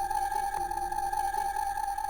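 A sustained, steady synthetic tone played from an E-mu SP-1200 sampler's filtered output, with a hiss underneath and a short click a little past half a second in.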